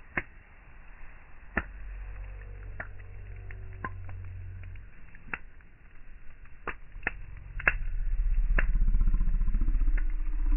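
Burning campfire logs crackling, with sharp, irregular pops every second or so. Under them a low rumble swells and becomes the loudest sound about eight seconds in.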